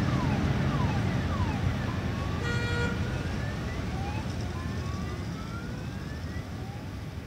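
Emergency-vehicle siren sweeping up and down in pitch over a low traffic rumble, fading slowly. A short steady horn-like tone sounds about two and a half seconds in.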